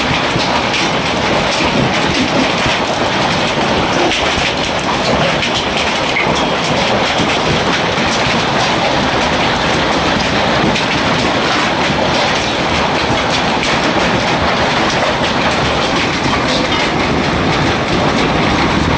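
Hailstorm: hailstones pelting a roof and hard surfaces in a dense, steady clatter of countless small impacts.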